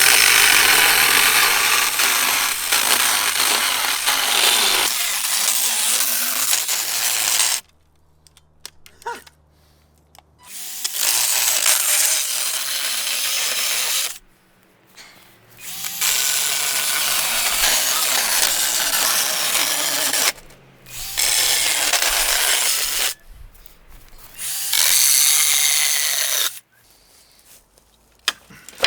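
Mini-chainsaw running and cutting through the wood of an old garden bench, in five runs of a few seconds each with short pauses between.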